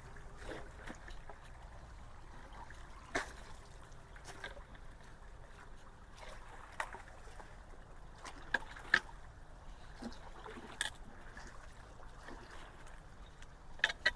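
Creek water running and trickling through a culvert, with a handful of short sharp knocks scattered through it, the loudest about nine seconds in.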